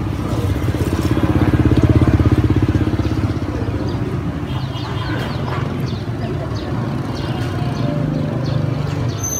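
A motorbike engine passing close by, swelling to its loudest about two seconds in and then fading, over a steady hum of street traffic.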